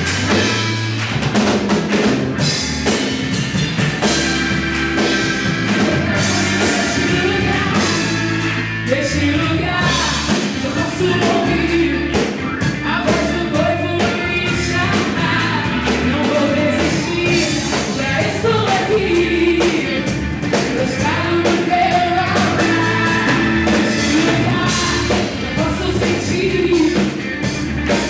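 Worship song played by a band with drum kit and bass, with a singing voice coming in partway through.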